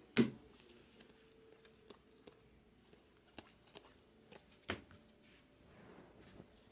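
Trading cards handled and set down on a table: a sharp tap just after the start, scattered faint ticks, and a second tap about two-thirds of the way in.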